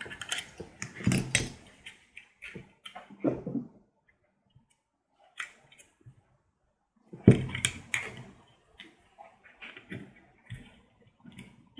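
Handling of a hand-held plastic embossing label maker as label tape is fed into it: scattered small plastic clicks and knocks, with a louder knock about seven seconds in.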